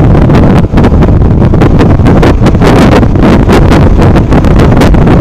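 Heavy wind buffeting on the microphone of a moving Royal Enfield Himalayan motorcycle, loud and gusting irregularly, with the bike's engine running under it.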